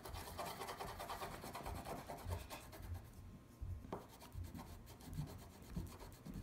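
A crayon scribbled rapidly back and forth on paper, a dry rubbing rasp of many quick strokes, with soft knocks from the paper pressing on the table underneath.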